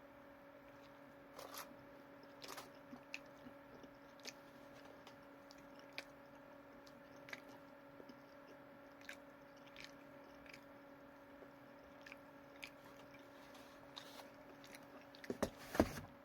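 A person eating a pulled pork taco: faint bites and chewing with soft scattered clicks of mouth noise, a louder flurry of them near the end.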